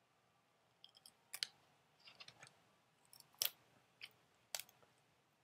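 Small plastic screw-cover pieces being worked off a Chromebook's screen bezel by hand: a few sharp, scattered plastic clicks and a short scratchy patch about two seconds in.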